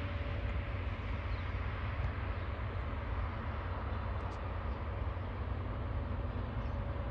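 Distant log train led by TasRail TR class diesel locomotives passing, a steady low rumble.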